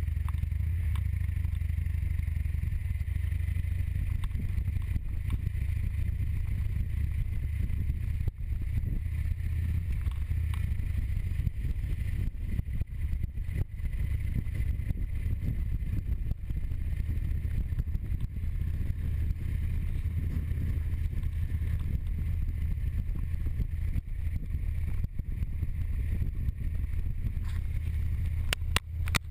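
Motorcycle engine running at road speed with wind rushing over the microphone, a steady low rumble throughout. Just before the end a few sharp knocks and rubs as something brushes against the camera.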